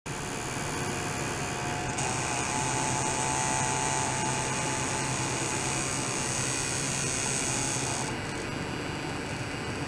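Steady electronic hiss and faint high tones from a benchtop ultrasonic probe setup driven by a function generator. About two seconds in, a higher-pitched whine and a mid tone join in, then drop away about eight seconds in.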